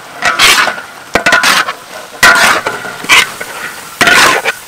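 Diced vegetables tipped into a large wok of frying beef and stirred with a metal spatula, which scrapes the pan in five short strokes about a second apart over a steady low sizzle.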